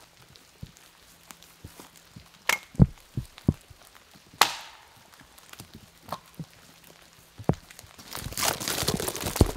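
Footsteps on the forest floor with a few sharp cracks of twigs and branches, then, near the end, a folding hand saw rasping through a fallen pine log in quick strokes.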